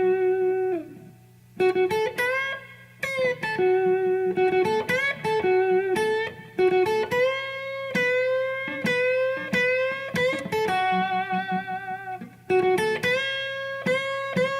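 Electric guitar playing a blues lick built on repeated string bends, each note pushed up in pitch and let back down. It pauses briefly about a second and a half in, and held notes waver with vibrato in the middle stretch.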